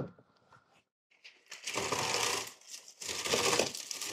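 Scotch Cushion Lock honeycomb kraft paper wrap pulled out of its dispenser in two long rustling pulls of about a second each, the paper crinkling as it unrolls and opens up. A few light clicks come at the very start.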